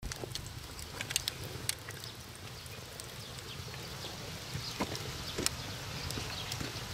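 Wood fire crackling in the firebox of an iron cauldron stove: irregular sharp pops and snaps from burning planks and logs, with a low steady rumble underneath.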